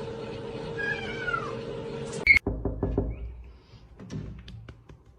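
A domestic cat gives one short meow that falls in pitch, about a second in. Then, after a sudden cut, a scatter of light knocks and taps.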